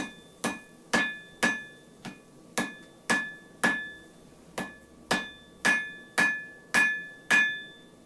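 Blacksmith's hammer giving light, evenly spaced taps to wire rope at welding heat on an anvil, forge-welding the cable strands together. About two blows a second, each with a brief metallic ring, with a short pause about four seconds in.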